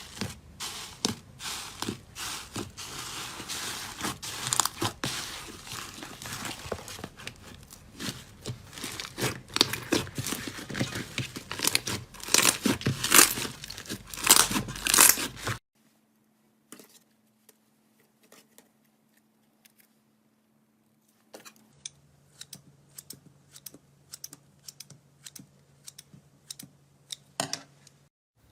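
Slime being squeezed and worked by hand: a dense run of crackling pops and clicks that cuts off suddenly about fifteen seconds in. After that, sparse, fainter pops over a faint steady hum.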